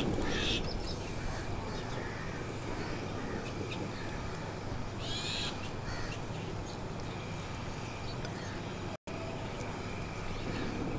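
A bird calling outdoors, one call at the start and a second about five seconds in, over steady low background noise. The sound cuts out for an instant near the end.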